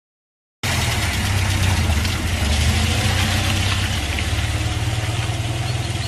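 An engine running steadily with a deep, even hum and a hiss over it. It cuts in abruptly about half a second in, after dead silence.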